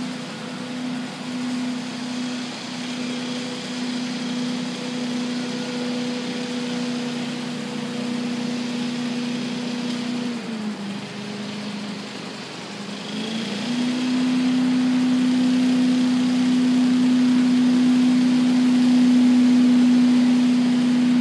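Small gasoline engine of a leaf blower running at a steady high speed. About ten seconds in it drops to a lower pitch, then speeds back up and runs louder until it slows again right at the end.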